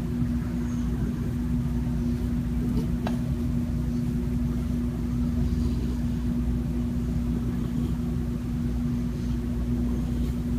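A steady low motor rumble with a constant hum at one pitch, with a faint click about three seconds in.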